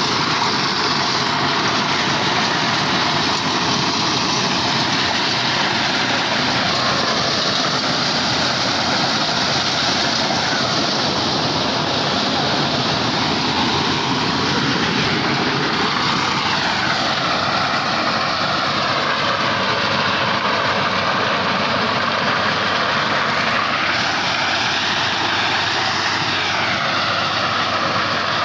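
Tractor-driven maize thresher running: a loud, steady mechanical drone from the tractor engine and threshing drum, its pitch slowly dipping and rising in places.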